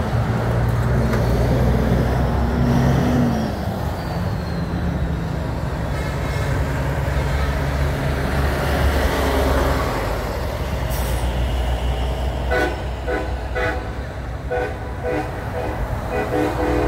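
Heavy diesel trucks towing race-boat trailers pass slowly, their engines droning low. In the last few seconds a horn sounds in a series of short blasts.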